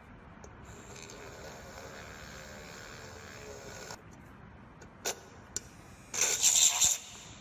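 Workshop handwork. A faint steady whirring sound lasts a few seconds, then come two sharp clicks, then a loud rasping scrape lasting under a second near the end.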